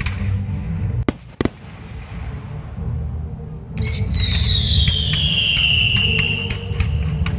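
Fireworks in a display: ground fountains giving a steady low rumble, two sharp bangs about a second in, and a loud whistle falling in pitch from about four seconds, with scattered crackles.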